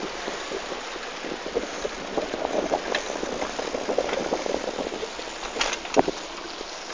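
Bicycle riding along a street: steady rolling noise with many small rattling clicks, and one sharp knock about six seconds in.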